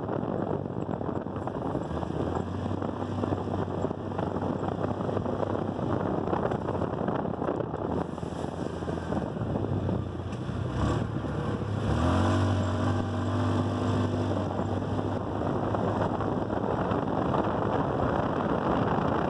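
Yamaha Rhino 450 side-by-side's single-cylinder four-stroke engine running under way, with wind rushing over the microphone. About twelve seconds in, the engine note rises briefly as it revs.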